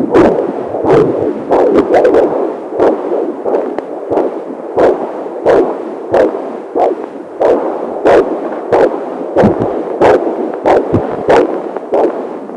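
Fetal heartbeat picked up by a Doppler fetal monitor: a steady, quick rhythm of whooshing pulses, a little more than one a second.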